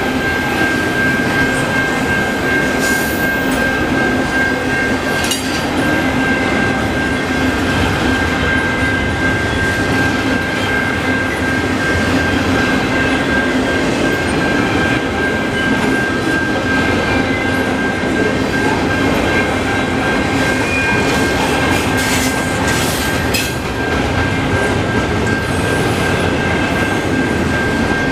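Freight train of double-stack container well cars rolling slowly past, with a steady rumble of wheels on rail and a constant high-pitched squeal or ring from the wheels. A few metallic clanks come through: one about 3 seconds in, one about 5 seconds in, and a couple near 22–23 seconds.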